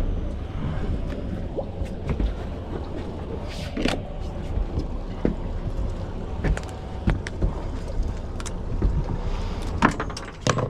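Steady low rumble of wind and water around an offshore fishing boat, with scattered sharp knocks and clicks as a landed red grouper is handled and unhooked with pliers on the deck.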